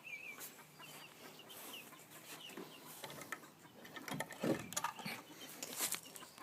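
Young chickens clucking and cheeping softly, many short chirps overlapping, with a few knocks and rustles in the second half.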